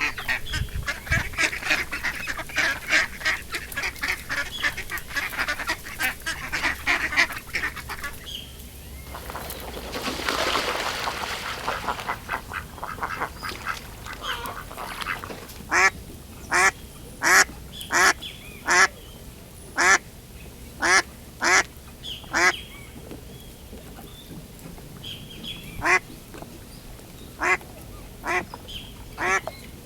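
Duck quacking. A fast run of chattering quacks comes first, then a rushing noise for a few seconds, then loud single quacks about one a second with short pauses between.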